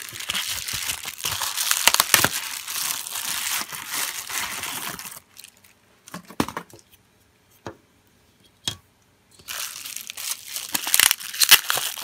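Plastic bubble-wrap bag crinkling as a circuit card is slid out of it, then a few light clicks, then more crinkling from a smaller bubble-wrap bag being handled near the end.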